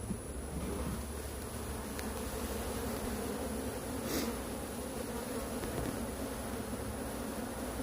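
Honeybees buzzing steadily in a mass around open hive frames, from a colony the beekeeper finds has no queen. A brief rustle about four seconds in.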